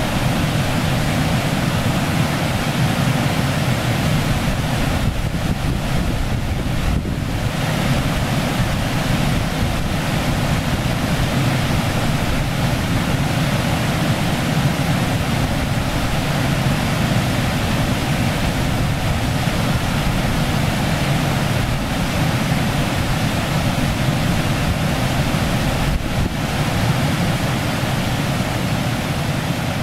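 Steady rushing of shallow river water running over stones.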